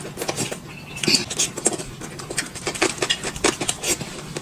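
Close-up eating sounds: a peeled boiled egg being bitten and chewed, with irregular small clicks and smacks of mouth and chopsticks against the china plate.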